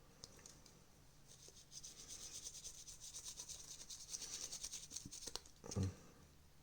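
Quick, light rubbing strokes from cleaning the parts of a disassembled TV remote, lasting about four seconds, then a short soft thump near the end.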